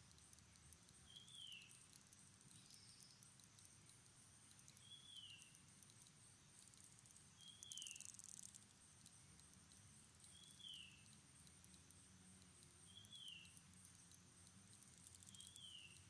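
Faint forest ambience: a steady high insect buzz, swelling briefly about halfway through, and a bird's short falling whistle repeated six times, every few seconds.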